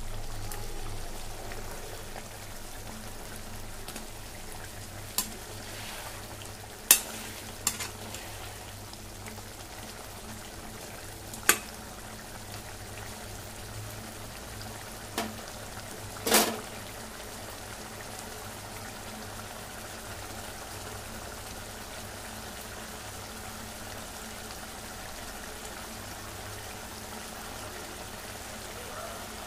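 Fish head curry simmering and bubbling in a kadai, with a steady low sizzle. A spatula stirs the curry and knocks sharply against the pan about six times in the first half.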